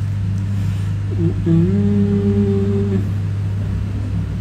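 A man's drawn-out hesitation 'hmm' held at one steady pitch for about a second and a half, starting about a second in, over a steady low background hum.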